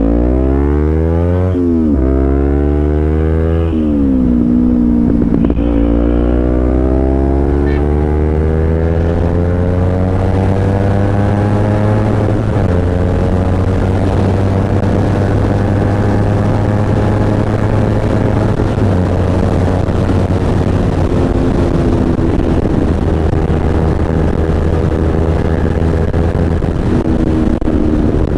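Kawasaki Z250's parallel-twin engine at full throttle: it climbs in pitch and drops back at three quick upshifts in the first six seconds, then pulls up slowly in a high gear and settles into steady high-speed running. Wind rushes over it.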